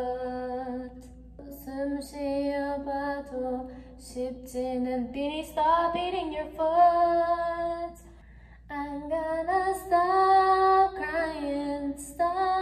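A woman singing a slow song into a handheld karaoke microphone, in long held notes with short breaks between phrases.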